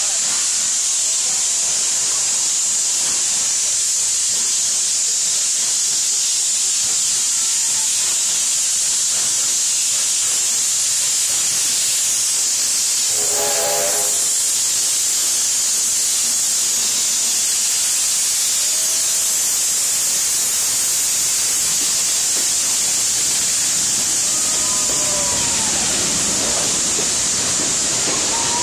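NSW C32-class steam locomotive 3265 sounds its whistle in one short blast about halfway through, over a steady high hiss. Near the end its carriages rumble past close by.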